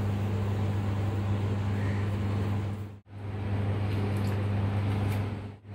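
Steady low electrical hum, the sound cutting out briefly twice, about three seconds in and near the end.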